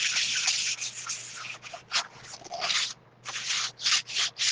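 Sandpaper rubbed by hand over a painted wooden cutout in back-and-forth strokes, scuffing the paint to distress it; the strokes come quicker near the end.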